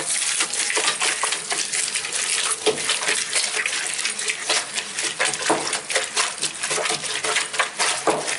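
Cylindrical stone pestle turned by hand in a traditional stone grinder (aattukal), crushing raw shallots and garlic for masala: a dense, continuous run of stone scraping and crunching clicks.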